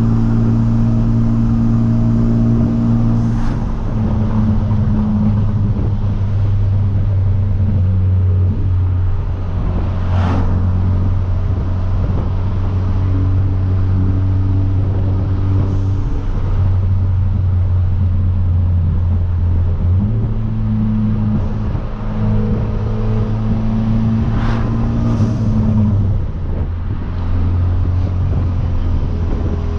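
Hyundai Veloster Turbo's tuned 1.6-litre turbocharged four-cylinder with a catless downpipe, droning steadily while driving. Its pitch shifts down and back up a few times as throttle or gear changes, with a few short sharp sounds scattered through.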